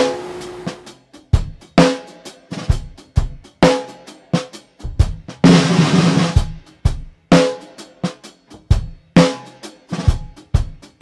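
Outro music: a drum-kit beat of kick and snare hits at a steady rhythm, with a longer, sustained hit about five and a half seconds in.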